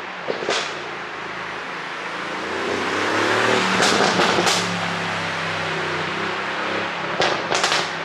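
Mercedes-AMG GLC63 S twin-turbo V8 driving past, its engine note rising as it nears and falling away after. The exhaust pops and crackles from a tuned ECU pop map: a few sharp cracks about half a second in, a cluster as the car passes about four seconds in, and more near the end.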